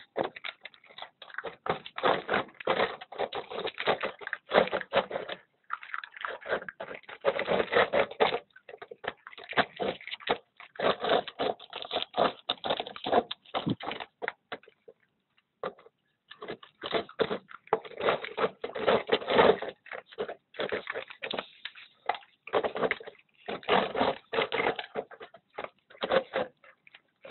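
Dogs chewing and crunching dog food, a dense run of crisp crunches and clicks that pauses for a second or two about halfway through.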